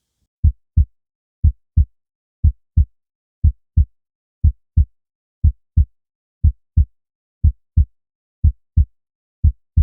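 Heart sounds at the pulmonary auscultation focus: a steady lub-dub, each beat a pair of short thuds (first and second heart sounds) about a third of a second apart, repeating once a second, about 60 beats a minute.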